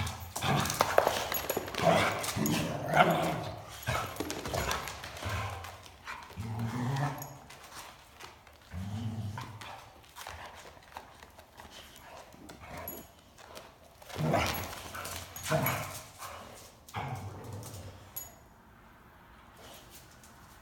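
A dog vocalizing in irregular bursts with pauses between them, loudest in the first few seconds and again about fourteen to seventeen seconds in, fading near the end.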